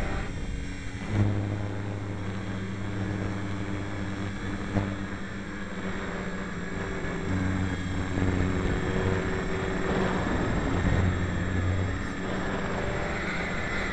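Small RC model airplane's motor and propeller, slowed down: a low droning hum that swells and fades several times over a steady rush of wind noise on the onboard camera's microphone.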